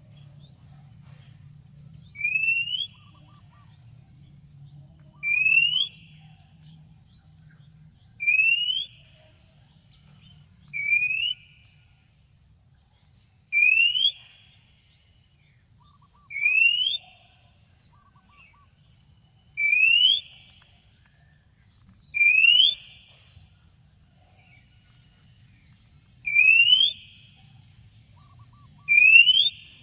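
Oriental magpie-robin (kacer) giving a single short rising whistle, repeated about every three seconds, each time the same. A faint low hum runs underneath.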